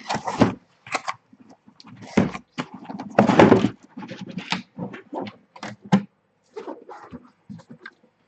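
Trading-card boxes and their wrapping being handled and opened: irregular rustling, scraping and knocks of cardboard and plastic, with a longer rustle about three seconds in.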